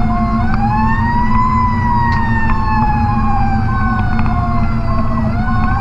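Fire truck siren wailing, its pitch rising for about a second and a half, then falling slowly and starting to rise again near the end, with a short repeated tone about twice a second. Underneath is the steady low rumble of the ladder truck's Caterpillar C12 diesel and road noise in the cab.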